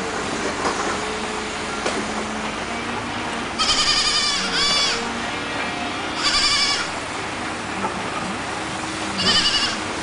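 Kid goat bleating three times, high and quavering: a longer two-part call, then two shorter ones a few seconds apart.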